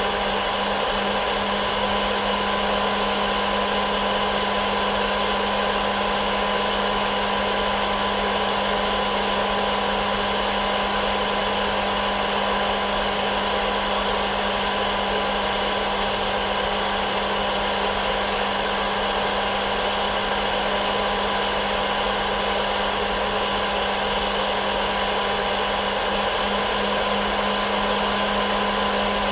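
Hair dryer blowing steadily: an even rushing noise with a steady hum that never changes, played as white noise for a baby's sleep.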